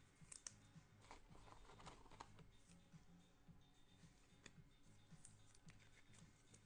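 Faint, scattered clicks and rustles of trading cards and clear plastic card holders being handled.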